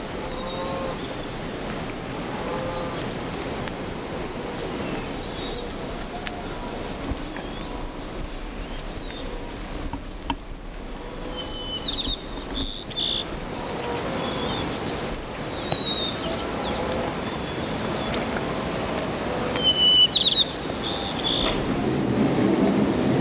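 Outdoor ambience: a steady background hiss with small birds chirping, in two louder bursts of chirps about halfway through and near the end.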